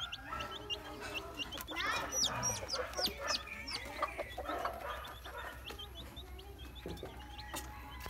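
Chicks peeping in many short, high cheeps that slide down in pitch, with lower clucking among them in the middle.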